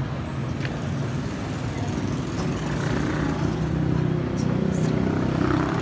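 Steady low rumble of a car on the move.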